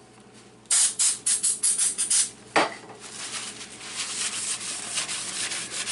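Aerosol can of brake cleaner sprayed in a quick series of short hissing bursts onto a paper towel, then a single sharp knock. After that the paper towel rubs steadily over the stainless steel sink rim, degreasing it before a bead of sealant.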